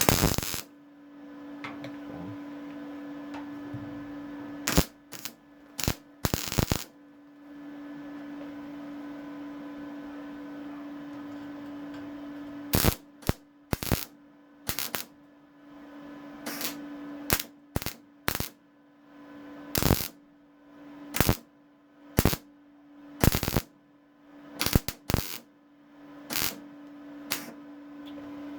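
MIG welder tack- and plug-welding a steel repair plate into a car floor seat mount, in about twenty short bursts of arc crackle, some in quick runs of two or three. A steady hum lies between them.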